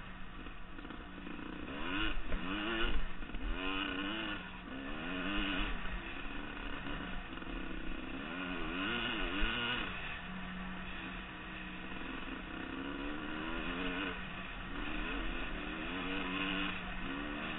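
Dirt bike engine revving up and down again and again as the throttle is opened and closed, heard from a helmet-mounted camera.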